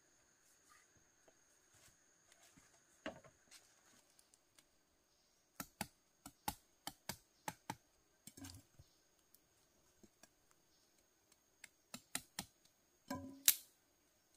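Bamboo being worked by hand with tools: irregular sharp clicks and knocks, a quick run of about seven in under two seconds, a duller thump, then another cluster ending in the loudest knock near the end.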